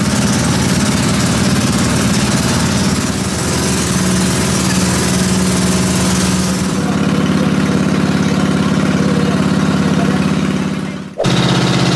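Motorboat engine running steadily while the boat cruises, over a constant rushing noise. The sound drops out for an instant near the end.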